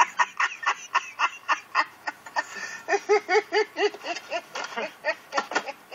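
A man laughing hard: a long run of rapid, repeated ha-ha pulses, about five or six a second.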